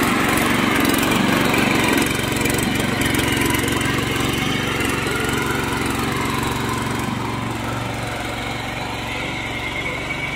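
Kisan Power 7.5 hp power weeder's small petrol engine running steadily as the machine tills soil, a little quieter from about two seconds in.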